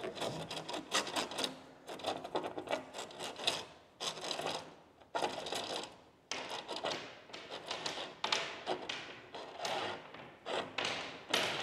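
String being pulled hand over hand through cable trunking in a wall: a run of short rasping, rubbing strokes at irregular intervals, about one or two a second.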